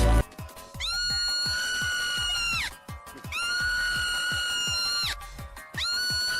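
Three long, high, held scream-like calls, each about two seconds, rising at the onset and dropping off at the end, over music with a steady fast beat.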